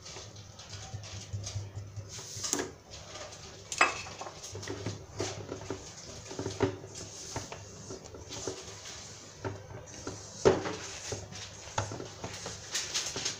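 Spatula scraping and tapping against a stainless steel mixing bowl as flour is folded into a thick cake batter by hand, in irregular strokes. Sharper knocks stand out about 4 seconds in and again about 10 seconds in.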